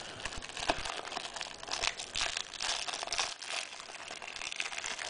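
Clear plastic wrapper of a trading-card promo crinkling as hands pull the package open, a run of quick irregular crackles.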